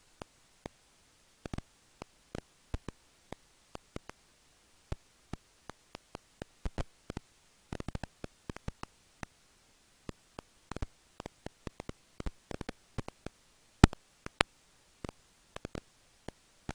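Serotine bats at their roost, heard as irregular sharp clicks and ticks, several a second, with two louder clicks a little over three quarters of the way through.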